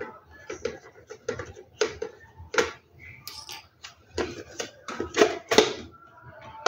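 Small screwdriver working the battery-cover screw of a plastic toy, with the hard plastic case handled and set down: a run of irregular sharp clicks and taps.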